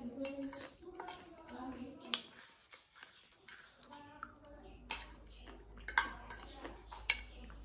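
A metal fork clinking and scraping against a plate several times, the loudest clink about six seconds in, with close-up eating and chewing sounds.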